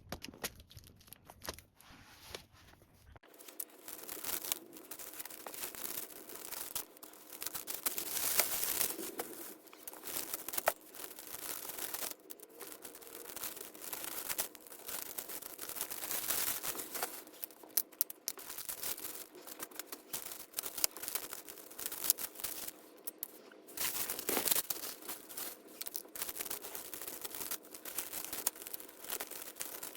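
Continuous scratchy rubbing and rustling from close-up hand work on craft materials, made of many quick strokes. It starts suddenly about three seconds in, replacing a quieter stretch with a low hum.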